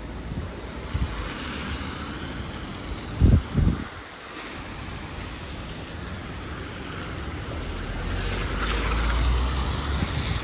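Wet-street traffic: a steady hiss of tyres on rain-soaked pavement, with a vehicle passing and swelling louder near the end. Two short low thumps a little over three seconds in.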